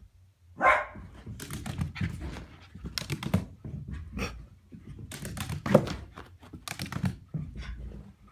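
A pet dog barking: a loud bark just under a second in, then a busy run of short sharp sounds and knocks until near the end.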